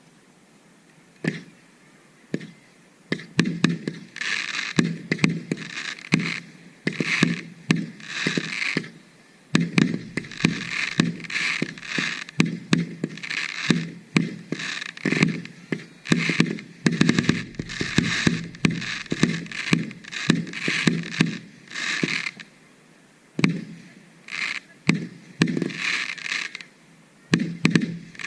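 Aerial fireworks display: a single bang about a second in, then a dense, irregular run of loud shell bursts and cracks, often several a second, easing briefly near the end before more bursts.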